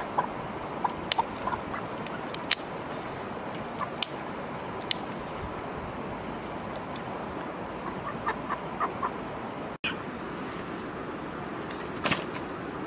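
Dry twigs and sticks snapping with sharp cracks as they are broken and laid for a small wood fire, over a steady hiss. A few short bird chirps come in near the end.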